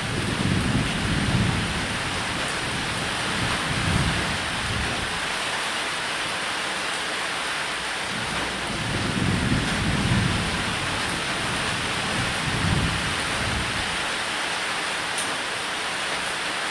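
Steady rain falling on a roof, with low rolls of thunder rumbling up and fading several times.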